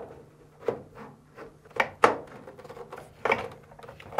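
Plastic idler pulley bracket and its spring being handled and pressed into position on a dryer's chassis: about six short plastic knocks and scrapes.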